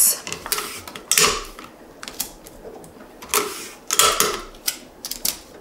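Tape being pulled from a tape dispenser, cut off and pressed down onto paper over a glass cutting board: a series of about seven short rasping strokes with pauses between.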